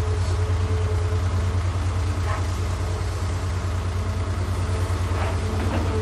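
Diesel engine of heavy earthmoving machinery running steadily, deep and low-pitched with a steady hum above it.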